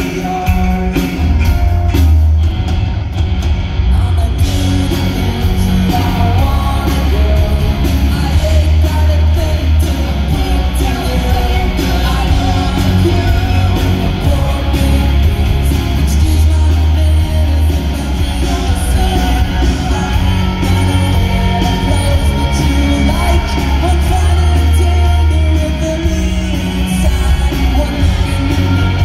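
Live rock band playing loudly, with electric guitars, bass, drums and a sung lead vocal, heard from among the audience.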